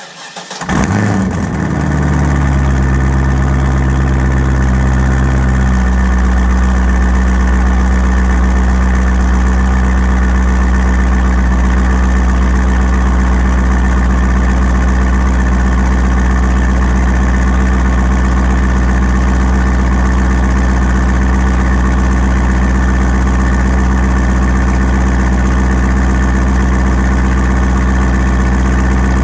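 2004 Corvette Z06's LS6 V8 starting through a Borla S-Type axle-back exhaust: it catches within the first second and flares up, then settles into a steady idle whose note steps down slightly about six seconds in.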